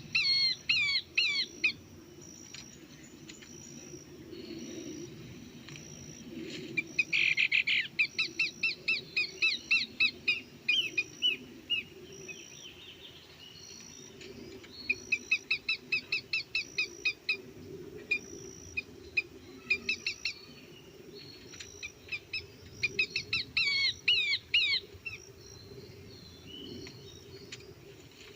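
Bird calling in repeated bouts of rapid, sharp chirping notes, each bout lasting a few seconds, over a steady low background noise.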